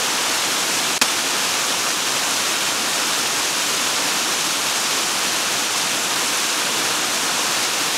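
Swollen river rushing past, a steady loud hiss of fast-flowing water. A single short click about a second in.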